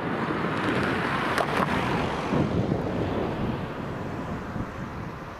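A car driving over the level crossing and passing close by: tyre and engine noise swelling to a peak about two seconds in, with a couple of brief knocks around the peak as the wheels cross the rails, then fading away. Wind rumbles on the microphone throughout.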